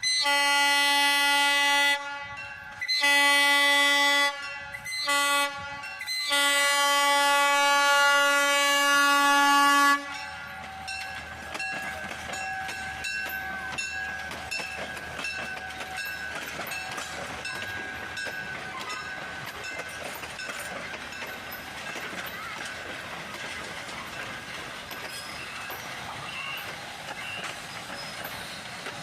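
Steam locomotive whistle sounding the grade-crossing signal: two long blasts, a short one, then a final long blast. The 0-4-0 tank engine and its cars then roll past, wheels clicking over rail joints with a faint squeal.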